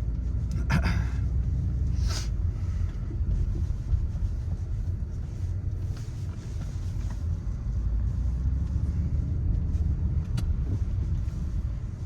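Car driving on snowy roads: a steady low rumble of engine and road noise, with a faint engine tone drifting slowly in pitch. Two brief sharp noises come about one and two seconds in.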